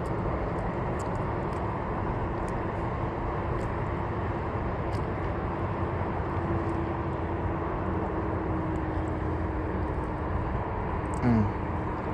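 Steady outdoor rumble with a faint engine drone that sinks slightly in pitch as it goes, and a few light ticks; a brief low sound with falling pitch about eleven seconds in is the loudest moment.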